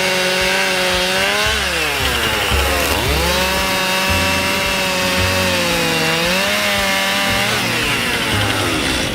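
Chainsaw engine running at high speed, with its pitch dropping and recovering twice as it is loaded.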